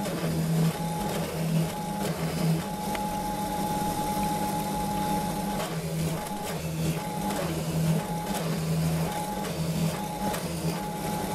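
Benchtop drill press running with a steady motor hum as its bit is fed into a wooden board again and again, drilling a row of holes. The cutting noise and hum come and go with each hole.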